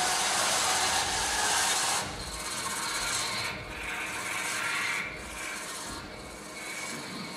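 Noise-based score for a modern-dance piece: a dense wash of noise spread from low to high pitches. It drops in level about two seconds in, after which a thin high tone comes and goes over the quieter texture.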